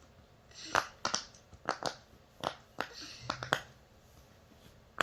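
Silicone bubbles of an apple-shaped push-pop fidget toy being pressed on its loud side, giving sharp pops about nine times in the first three and a half seconds, some in quick pairs, and once more near the end.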